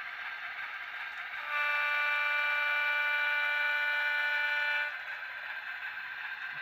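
Model diesel locomotive's sound-system horn giving one long blast of about three seconds, over the steady rolling noise of model freight cars passing on the track.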